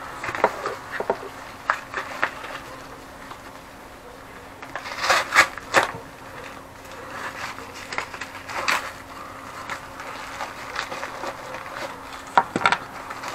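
Plastic postal mailer crinkling and rustling as it is handled and torn open by hand, in irregular bursts, over a faint steady low hum.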